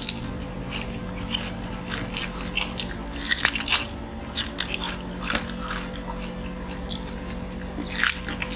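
Close-miked eating: two people biting into and chewing Korean fried chicken drumsticks, with wet smacks and crunchy crackles, densest about three and a half seconds in and again near the end.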